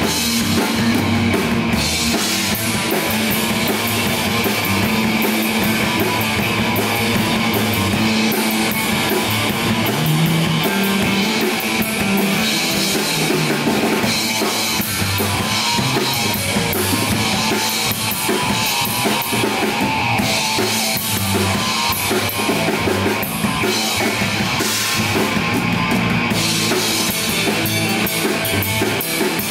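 Live rock band playing loud through amplifiers: a drum kit with kick drum and cymbals driving a steady beat under electric bass and electric guitar.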